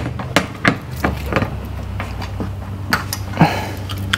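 Irregular sharp clicks and knocks of a hand tool working at the plastic mud guard and its fasteners under a Jeep's front bumper, over a steady low hum.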